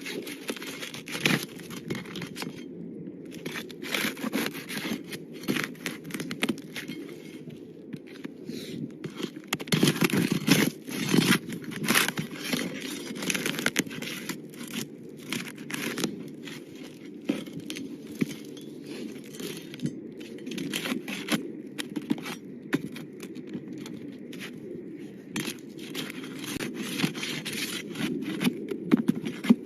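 Overlapping asphalt shingles being pried up and broken loose from their sealant strips: irregular scraping, tearing and crackling.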